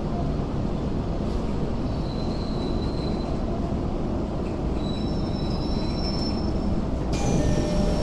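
Hibiya Line subway train heard from inside the car, braking into a station: a steady rumble from the running gear, with thin high wheel or brake squeals twice. A sharper, higher squeal starts near the end and slides down in pitch as the train comes to a stop.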